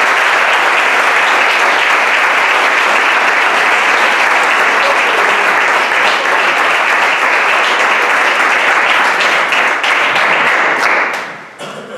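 A room full of people applauding, a dense steady clapping that dies away near the end.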